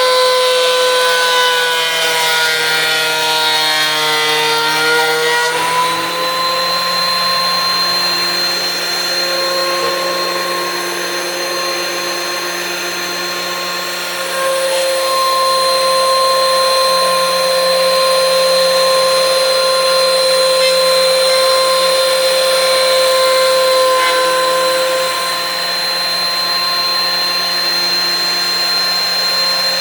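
DeWalt thickness planer running with a loud, steady motor whine while planing an old pine stair tread. Its pitch sags over the first several seconds as the cutterhead is loaded, then rises back about six seconds in and holds steady.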